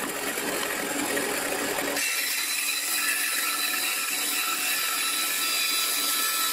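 Benchtop band saw running, then its blade cutting through the end of a wooden board from about two seconds in, a steady hiss over the motor.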